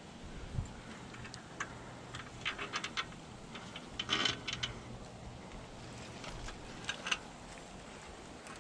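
Light metallic clicks and rattles from a metal tree stand being handled against a tree trunk, in small clusters, with a louder rustle of dry leaves about four seconds in.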